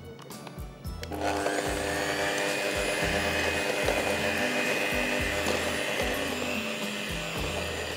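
Electric hand beater switched on about a second in and running steadily with a constant whine, creaming butter, sugar and egg for cake batter. A background music bed with a steady bass beat runs underneath.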